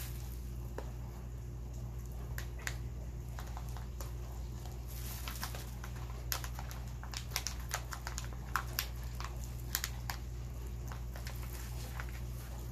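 Scattered light clicks and rustles of small hardware (studs, nuts and washers) and a plastic parts bag being handled, busiest in the second half, over a steady low hum.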